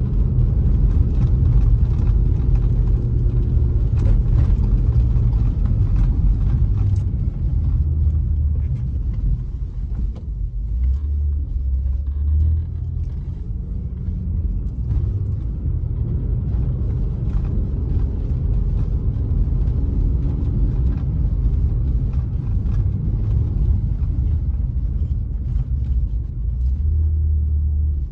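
Car engine and road noise heard from inside the cabin while climbing a steep hill: a steady low rumble with the engine note rising and falling, and a few light knocks.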